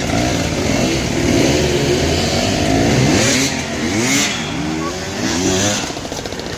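Dirt bike engines revving up and down over and over, their pitch rising and falling in quick swells, with more than one bike running at once.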